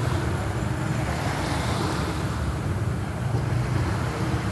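Wind rumbling on the microphone over the wash of small waves on the shore.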